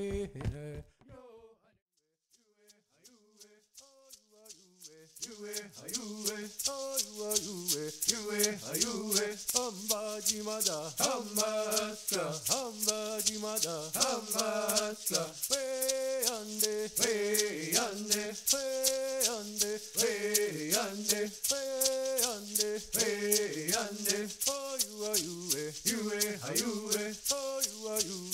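A song with singing over a rattle shaken in a steady beat. It drops away briefly near the start and fades back in over the next few seconds.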